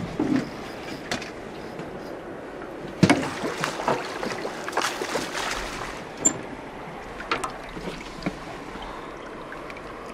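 Water moving against a fishing boat's hull on a river, with scattered knocks and two louder rushes of noise about three and five seconds in.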